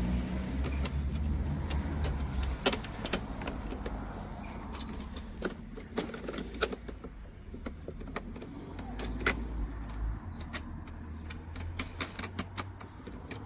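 Irregular metallic clicks and clinks of lawnmower handle fittings, bolts and nuts being handled and fastened during assembly. A low rumble runs underneath in the first couple of seconds and again around eight seconds in.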